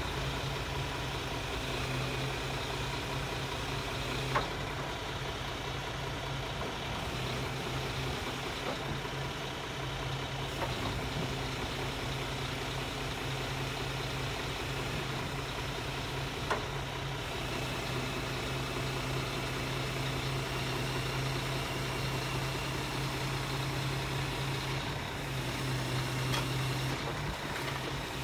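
Scania G480 truck's diesel engine running steadily at idle while its truck-mounted timber crane is worked. Two brief knocks come about four and sixteen seconds in.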